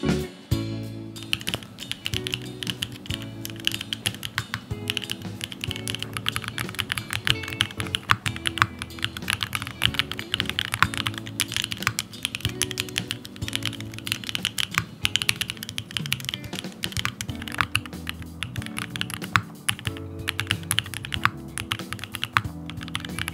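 Fast typing on a gasket-mounted, foamless aluminium Dune65 mechanical keyboard with Mera Mera No Mi switches and GMK Olive keycaps: a dense, steady run of key clacks. Background music plays underneath.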